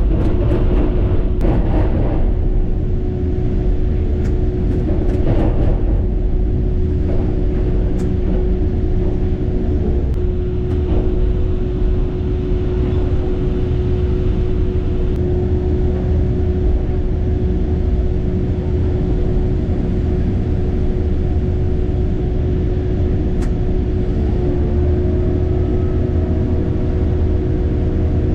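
Heavy construction machine running steadily: a deep engine rumble with a constant droning tone. A scattering of sharp clicks or knocks comes in the first several seconds, with a few more later.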